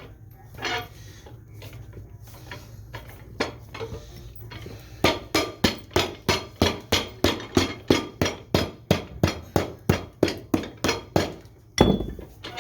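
Cobbler's hammer striking a leather boot on the bench: a few scattered knocks, then a steady run of sharp blows about four a second, ending with one heavier thump. This is the kind of hammering that sets freshly glued sole and toe-cap leather together.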